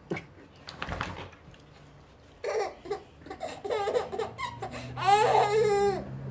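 Baby laughing in short bursts that build into one long, high-pitched squeal of laughter about five seconds in. A couple of sharp knocks sound in the first second.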